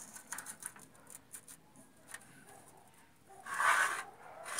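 Light clicks and taps of a steel ruler being laid on painted galvanized sheet steel, then a pencil scratching a line along the ruler for nearly a second about three and a half seconds in.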